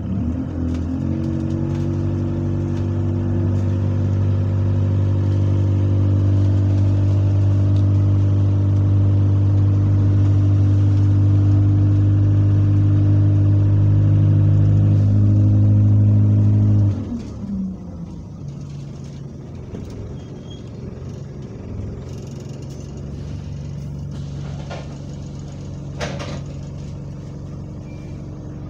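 Bus diesel engine of Metroline DE1015, heard from inside the saloon, pulling with a loud, steady drone at constant revs for about sixteen seconds. The revs then drop suddenly and it settles to a quieter running sound with road noise, with a brief knock or two near the end.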